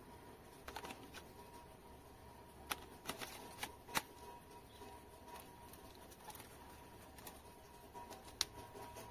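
Faint handling of a plastic drone while its battery pack is slid into the bay underneath, with scattered sharp plastic clicks. The clicks cluster around three to four seconds in, and there is one more near the end.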